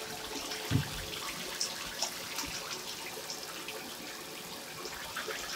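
Tap water running steadily into a bathtub, with light splashing and a single thump just under a second in.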